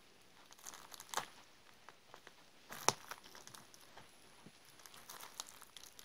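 Crinkling and crackling of clear plastic as tweezers and fingertips pick at and squeeze green tufts in a mock acne-extraction prop, with a few sharp clicks, the loudest about three seconds in.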